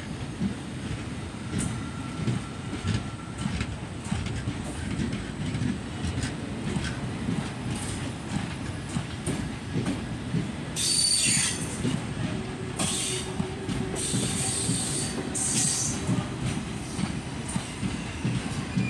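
Passenger coaches of an express train pulling away from a halt, the wheels rumbling and clattering over the rails. Several bursts of high-pitched wheel squeal come in the second half.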